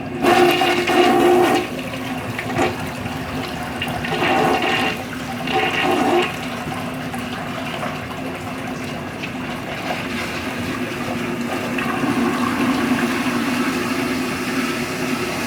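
A 1964 Universal Rundle wall-hung toilet flushing from a Briggs Conserver gravity tank. There is a loud rush of water in the first couple of seconds, then a few more surges over the next few seconds, then steady running water as the tank and bowl refill.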